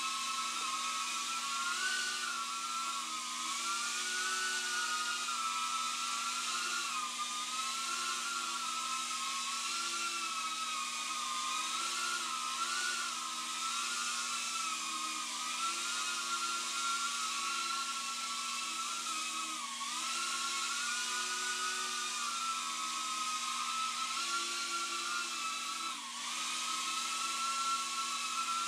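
Tiny Whoop micro quadcopter's motors and propellers whining in flight, the pitch wavering up and down with the throttle, with brief sharp dips about two-thirds of the way in and again near the end.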